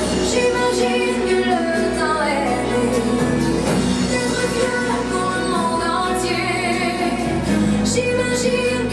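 A recorded song with singing plays loudly.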